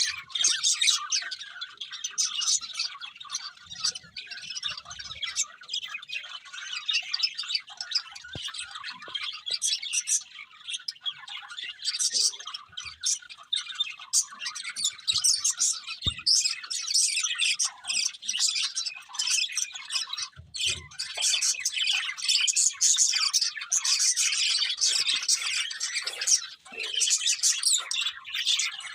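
Budgerigars chirping and warbling without pause, a dense chatter of short, high chirps.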